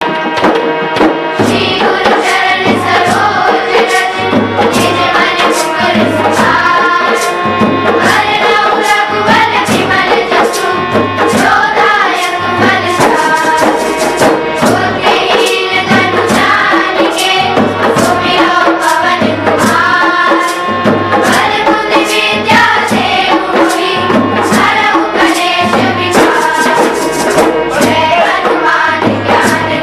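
Music: an Indian devotional song, voices singing a melody over a steady, evenly repeating percussion beat.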